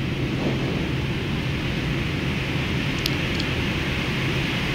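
Steady flight-deck noise of a Boeing 777 on approach: a constant rush of air over a low, even hum, with two faint clicks about three seconds in.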